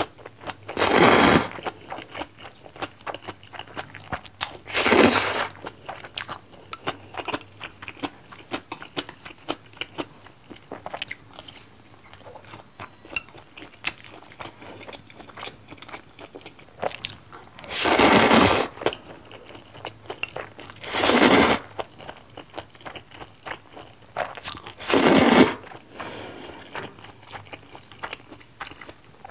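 Close-miked eating of jjajang ramen noodles: five loud slurps of noodles, each about half a second to a second long, spread through long stretches of wet chewing with small crunches.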